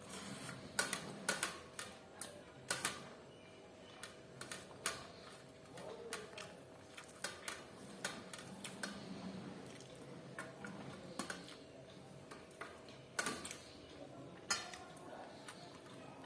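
Irregular sharp clinks and taps of dishes and cutlery during a meal, some close together and some a second or more apart, over a faint steady hum.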